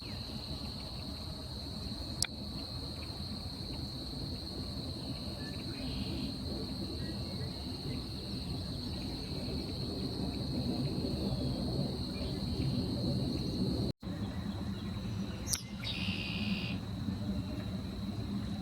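Outdoor ambience dominated by a steady, unbroken high insect trill, over a low background rumble. A sharp click about two seconds in, and a few brief bird chirps near the end.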